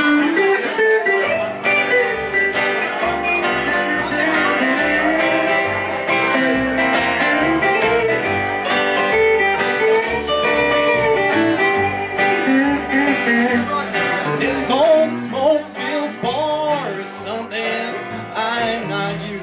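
Live country band playing: electric guitar, upright bass and acoustic guitar, with a melody line moving over separate plucked low bass notes.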